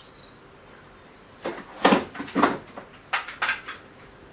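Stapler being pressed repeatedly, a quick series of about six sharp clacks in two groups, as it fails to staple.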